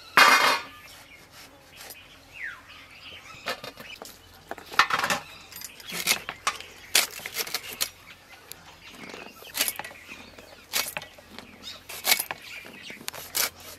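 Drumsticks (moringa pods) being cut in bundles on a fixed boti blade: a run of crisp, irregular chopping strokes, roughly one or two a second. A single louder clatter comes right at the start.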